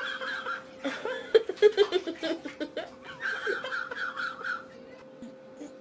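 Laughter in a run of short bursts, dying away after about four and a half seconds.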